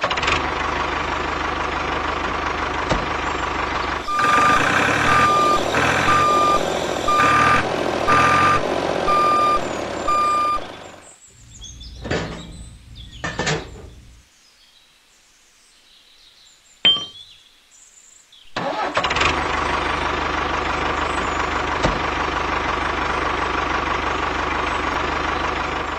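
Tractor engine running steadily. From about four seconds in, a reversing alarm beeps about once a second, seven times, as the tractor backs up. The engine then stops for several seconds, broken by a few clicks and knocks, and runs steadily again near the end.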